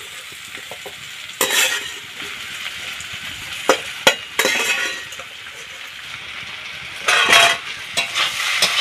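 Spiced jackfruit and fried potatoes sizzling steadily in a metal kadai. A metal slotted spoon scrapes and clinks against the pans now and then as the potatoes are scooped in and then stirred, with a longer burst of scraping about seven seconds in.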